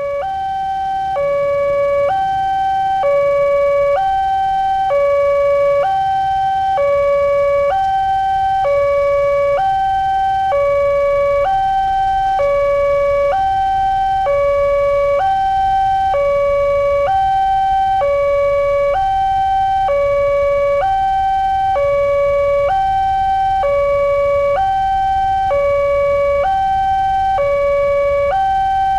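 Railway level-crossing warning alarm sounding its two-tone electronic signal, a lower and a higher tone alternating about once a second, warning that a train is approaching. It swells to full loudness over the first couple of seconds.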